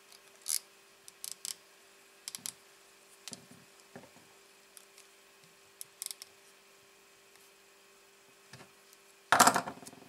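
Light clicks and rustles of fingers handling thin wires and plastic zip-tie parts on a quadcopter frame, with a louder rustle lasting about half a second near the end, over a faint steady hum.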